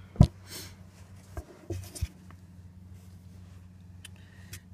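Handling noises: one sharp knock about a quarter second in, a few softer knocks and scrapes over the next two seconds, and faint clinks and rustling near the end as a hand takes hold of the small glass bubbler.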